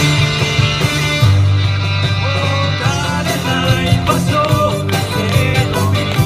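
Live pop-rock band performing through a PA system: electric guitar, keyboard and drums, with vocalists singing from about two seconds in.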